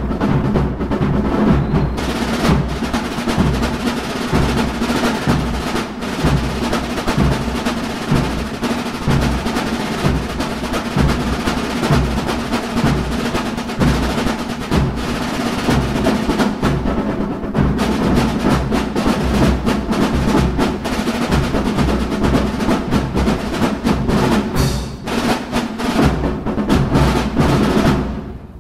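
Drum line of a drum and bugle corps playing a percussion feature: fast snare drum patterns and rolls over heavy drum beats.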